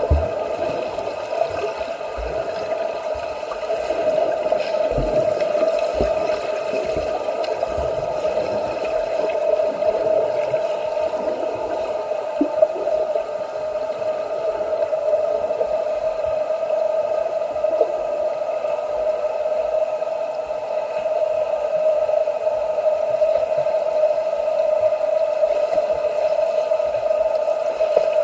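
Swimming-pool ambience: water splashing under a steady, unchanging hum, with a few soft low thumps in the first several seconds.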